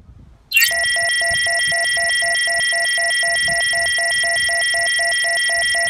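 A loud electronic tone starts suddenly about half a second in: a steady high pitch with a lower beep pulsing about four times a second beneath it.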